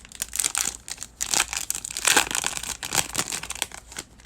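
Trading card pack wrapper crinkling and tearing in the hands as a pack of baseball cards is opened, an irregular run of crackles that dies away near the end.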